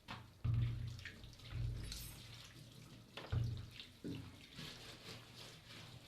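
Water from a kitchen tap splashing into a sink in uneven spurts, with three dull low thuds.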